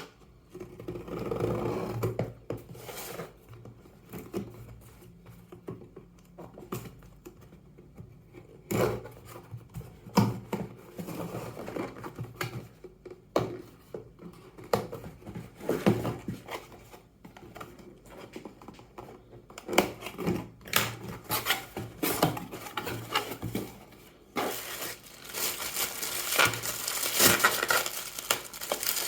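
An earbud retail box and its plastic packaging being handled and unpacked: scattered taps, scrapes and rustles of cardboard and plastic. Near the end comes a longer, denser stretch of crinkling plastic.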